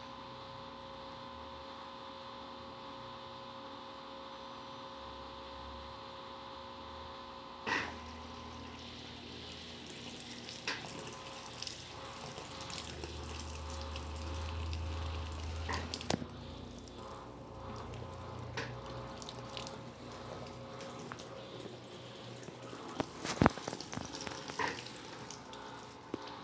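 Electrolux LTC15 top-loading washing machine during its spin: a steady motor hum, then a click about eight seconds in, followed by water rushing and draining as the basket turns, a low rumble that swells and fades, and scattered clicks. The basket does not come up to full speed, held back by excess soap suds.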